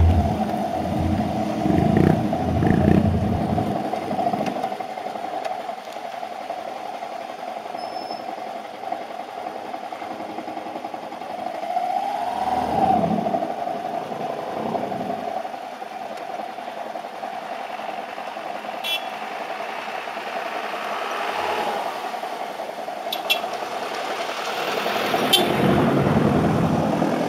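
Motorcycle engine idling steadily with the bike stopped, heavier and more uneven in the first few seconds as it pulls up. Another motorcycle's engine grows louder near the end as it approaches.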